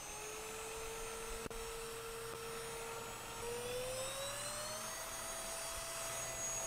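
Greenote GSC40 cordless stick vacuum running on low-pile carpet at its low speed, with a steady motor whine. About halfway through it is switched to the faster speed, and the whine rises in pitch and settles higher, a little bit noisy.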